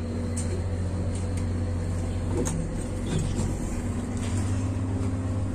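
An engine running steadily with a low, even drone, and a few light metallic clicks and taps over it from work on a hose and pipe fitting.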